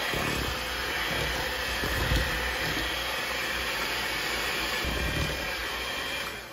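Electric hand mixer running steadily, its beaters whirring through cake batter in a metal bowl as eggs are beaten into creamed butter and sugar, with a high motor whine over the churning.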